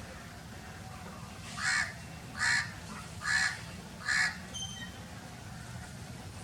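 A crow cawing four times in a steady series, harsh calls a little under a second apart.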